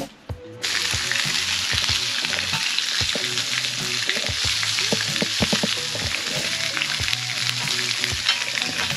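Food sizzling on a hot cast-iron grill plate. The sizzle starts suddenly about half a second in and goes on steadily.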